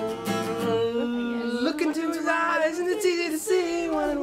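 A man singing, with long bending notes; an acoustic guitar strummed under the first second stops, leaving the voice unaccompanied.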